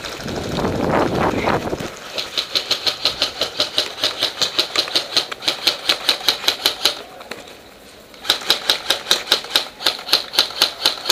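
Airsoft rifle firing a rapid string of shots, about six sharp clicks a second, in two runs with a short pause between them. It is preceded by a couple of seconds of rustling noise.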